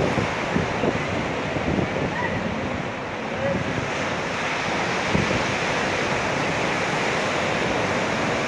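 Ocean surf: small waves breaking and washing up a sandy beach in a steady rushing wash, with wind gusting on the microphone.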